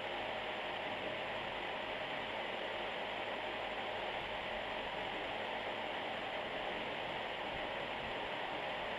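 Steady sizzling hiss of cut vegetables (drumsticks, brinjal, potato, beans) sautéing in oil in a frying pan, with no distinct clatter from the wooden spatula.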